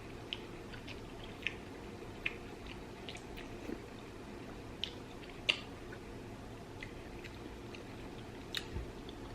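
A person chewing a mouthful of instant fire noodles: faint, wet mouth clicks about once a second over a steady low hum.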